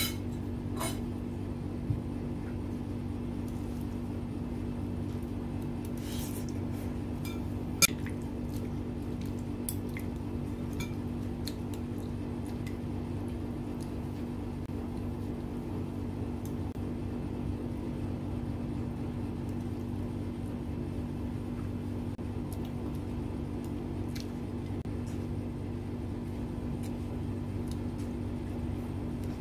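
Eating sounds: a metal spoon and chopsticks clicking now and then against a ceramic bowl, with wet chewing and noodle sounds, over a steady low hum.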